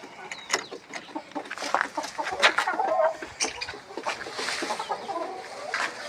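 Chickens clucking, with sharp clicks and rattles from handling a wire-mesh coop door.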